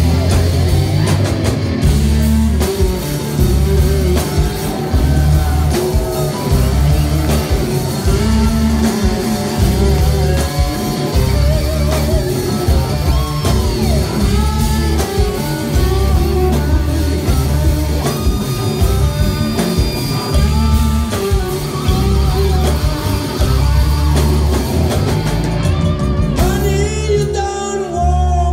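Live rock band playing an instrumental section, with a lead electric guitar bending notes over bass and drums. Near the end the band drops back to a thinner, quieter passage.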